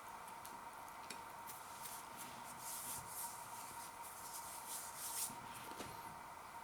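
Faint chewing of crispy-coated nacho cheese chicken bites, with scattered small clicks and two spells of crunching about three and five seconds in, over a faint steady tone.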